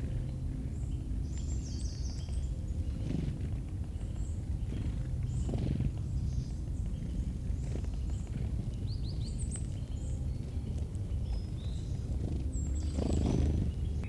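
Woodland ambience: a steady low rumble with scattered short, high bird chirps and trills, and a few soft thuds, the loudest near the end.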